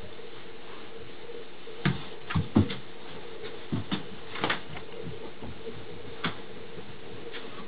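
A dog moving about and playing with a plush toy: several dull thumps and knocks from its paws and the toy, bunched in the middle, over a steady background hum.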